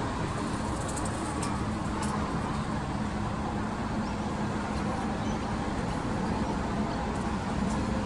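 Steady rumble of distant road traffic, with a few faint high ticks in the first two seconds.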